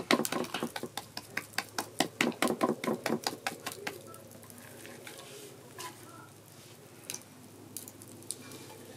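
Quick, repeated clinks of a metal utensil against cookware, about four or five a second, as food is stirred or mixed; they stop about four seconds in, leaving a quieter steady background with a few single clicks.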